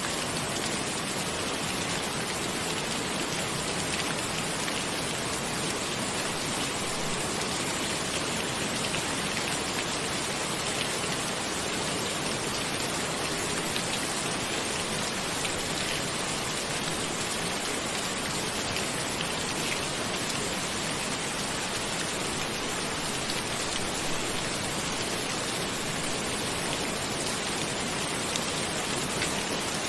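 Steady rain falling: an even hiss sprinkled with small drop ticks.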